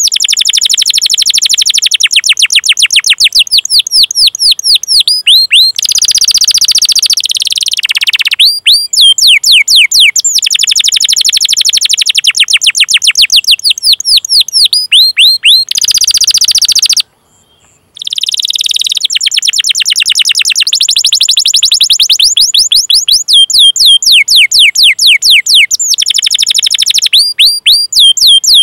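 Domestic canary singing: long runs of rapid repeated 'cuit cuit' chirps, each sweeping down in pitch, about five a second, broken by a couple of fast rolling trills. There is a brief sudden gap just past the middle.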